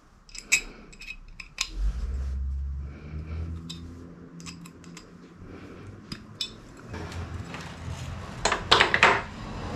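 Light metallic clicks and clinks of small steel studs being turned by hand into a billet aluminum bow tie emblem, over a low hum that starts about two seconds in. Near the end, a few louder scraping rustles as the emblem is pressed against the plastic grille.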